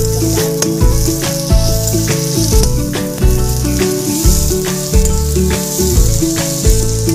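Chopped vegetables sizzling in oil in a wok as they are stir-fried with a spatula, over background music with a steady beat.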